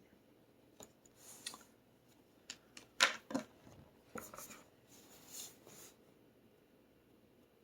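Handling noise from an opened laptop: a series of light clicks, taps and short scrapes, with one sharper click about three seconds in.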